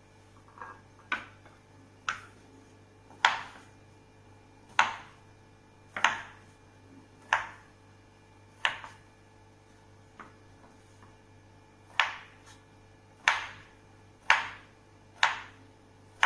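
A knife chopping through a block of tempeh and knocking on a wooden cutting board: about a dozen sharp chops at an uneven pace of roughly one a second.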